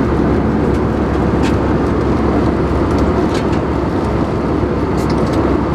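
Steady in-flight cabin drone inside an Airbus A319's main cabin: engine and airflow noise, with a few faint ticks.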